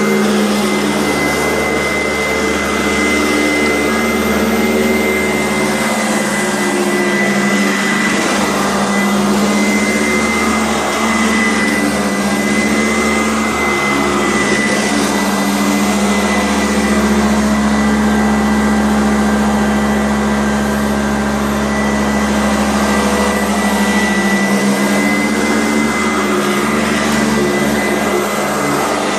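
Kent Euroclean vacuum cleaner running steadily while vacuuming, with a low hum and a thin high whine over a rushing hiss of air.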